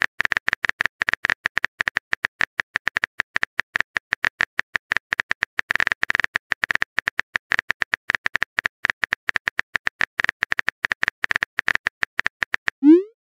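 A rapid, irregular run of short, sharp clicks, many a second, each with the same bright tick.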